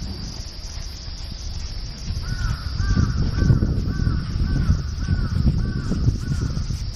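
A crow cawing in a run of about eight caws, roughly two a second, starting about two seconds in, over low wind rumble on the microphone.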